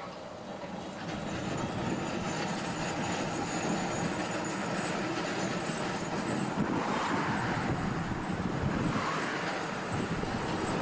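Electric heritage streetcar pulling away from a stop and running along street track, its wheels and motors steady on the rails, with road traffic passing close near the end.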